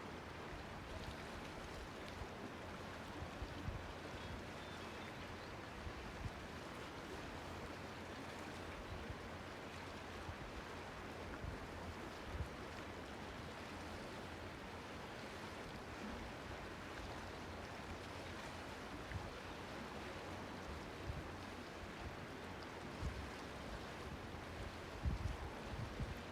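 Steady wash of sea water at a small harbour, with gusts of wind buffeting the microphone now and then, a few stronger ones near the end.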